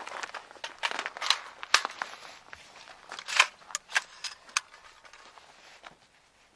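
A run of irregular clicks, knocks and scuffs, thinning out after about five seconds.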